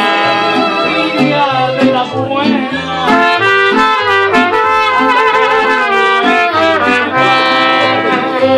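Mariachi band playing an instrumental passage: violins and guitars over a moving bass line.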